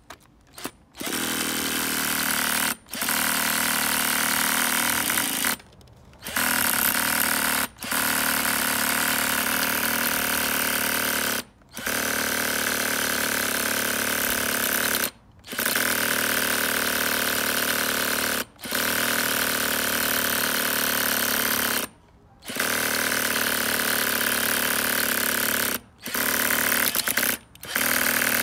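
Cordless drill spinning a nitro RC truck's glow engine over to start it, in spells of a few seconds with short stops between. The engine is being cranked but does not catch.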